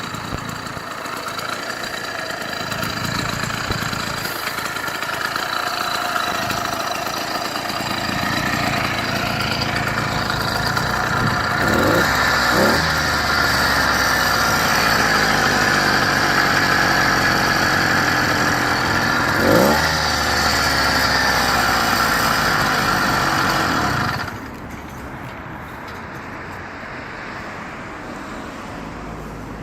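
Small 48cc bicycle-mounted engine running, growing louder over the first dozen seconds, with a few brief pitch sweeps. About 24 seconds in it drops suddenly to a much quieter, duller running sound.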